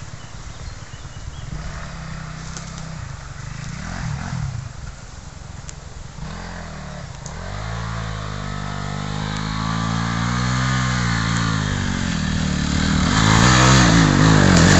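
Enduro dirt bike engine revving hard on a steep climb, its pitch rising and falling with the throttle. It grows steadily louder as the bike comes up the slope and is loudest near the end.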